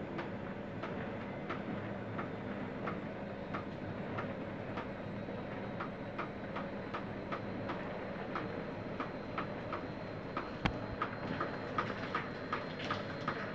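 Regular tapping, about two to three taps a second and a little quicker near the end, from storm rain being forced in through the roof, over a steady background of driving rain. One sharp click about ten and a half seconds in.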